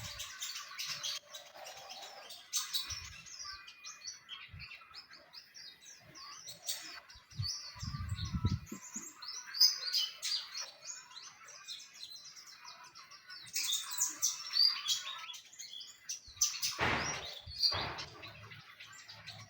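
Caged white-eye (pleci) singing: a fast, continuous high-pitched twittering song of quick chirps and trills. A few low thumps break in about 8 seconds in and near the end.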